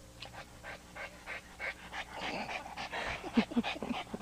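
A small dog panting quickly, getting louder about halfway through.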